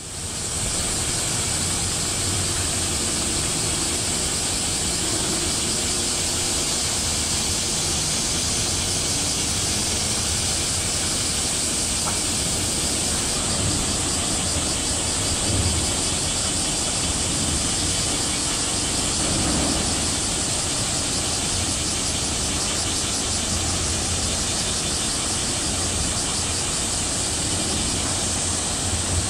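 Steady outdoor ambience: a continuous high-pitched buzzing hiss over a low rumble.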